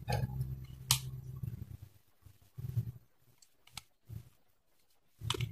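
Faint handling noise: low rumbling with a sharp click about a second in, then a few brief soft knocks.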